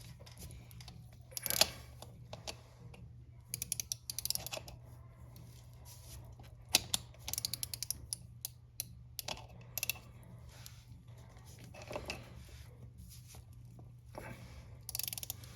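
Metal clicking and ratcheting of hand tools tightening a chain press tool onto the master link of a new motorcycle drive chain. It comes in short runs of rapid clicks with pauses between, over a steady low hum.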